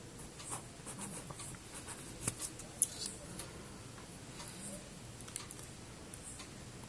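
Faint scattered clicks and light scratches of small objects being handled, with two slightly sharper clicks around the middle.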